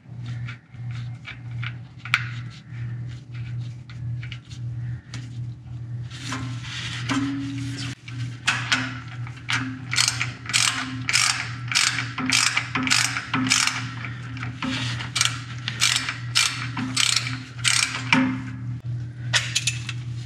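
Hand socket ratchet clicking as the rear differential fill plug is run back in: a few faint, quick clicks at first, then a louder, steady run of about two clicks a second from about six seconds in.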